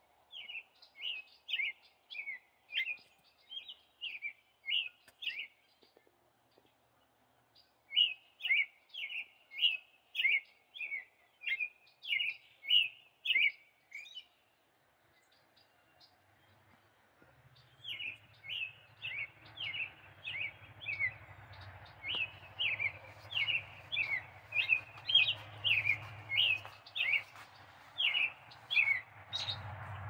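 American robin singing: three runs of short, clear whistled phrases, about two a second, with pauses of a few seconds between runs. A low steady rumble and hiss come up in the second half.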